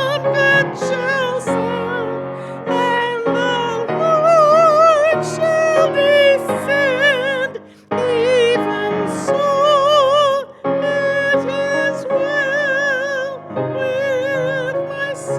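A woman singing a slow sacred solo in a high voice with wide vibrato, accompanied by piano. She pauses briefly twice, a little past halfway.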